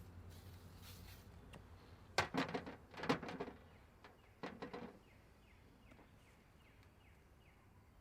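Cookware clattering: three short bursts of knocks and clanks, about a second apart, over a low steady background.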